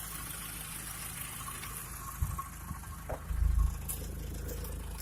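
VW Mk4 Jetta engine idling steadily with the AC on high, its AC compressor clutch not engaging. A couple of short low bumps come a little past halfway.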